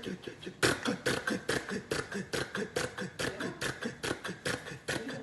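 A man imitating a two-cylinder tractor engine with his mouth: after a brief pause it chugs along in an even putt-putt of about four beats a second.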